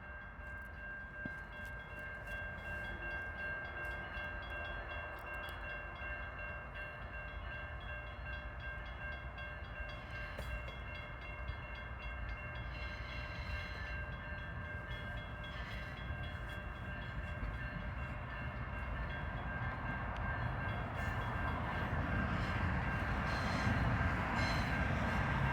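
An approaching GO Transit commuter train whose rumble grows steadily louder, with a steady high whine over it.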